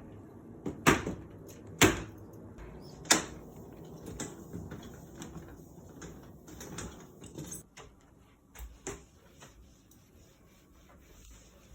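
A run of knocks and clatter from things being handled and set down: three sharp bangs in the first three seconds, then lighter rattling and handling noise, and two more knocks near the end.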